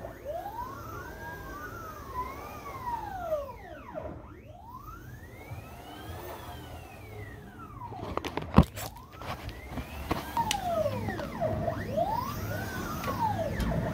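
Pilot Pro 50-50-12 CNC router's axis drive motors whining as the gantry and Z-axis move. The pitch rises and falls in overlapping arcs as each move speeds up and slows down. A sharp click comes about eight and a half seconds in.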